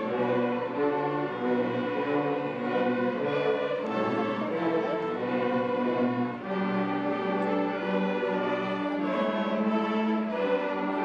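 Student string orchestra of violins and cellos playing a piece together, bowing held notes that change about once a second.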